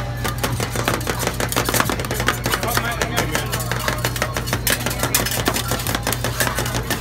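Two metal spatulas chopping and scraping ice cream on a frozen steel cold plate for rolled ice cream: a quick, irregular run of metal clacks and scrapes, over a steady low hum.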